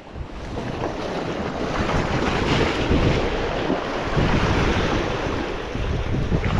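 Sea surf washing over shore rocks, with wind on the microphone.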